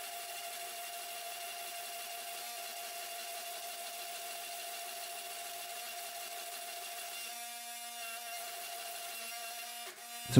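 Forging press running with a steady mechanical whine and hiss while its drawing dies draw out a hot Damascus billet.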